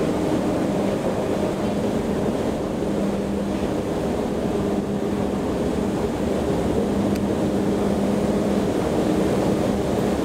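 O&K escalator running: a steady mechanical rumble with a low, even hum from its machinery while riding down it.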